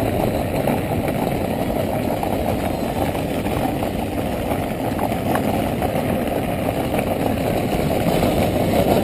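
Wind buffeting the microphone of a handlebar-mounted camera on a moving bicycle: a steady, dense low rumble.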